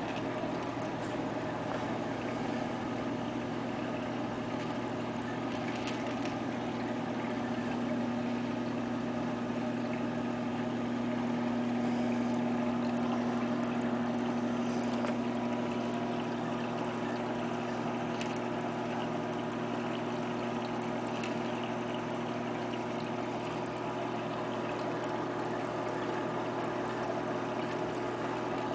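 Aquarium filter pump humming steadily, with water trickling and bubbling.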